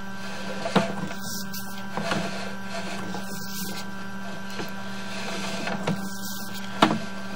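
Steady mechanical hum of a sewer inspection camera rig as the push cable feeds the camera down the pipe, with a few faint clicks and a sharper click near the end.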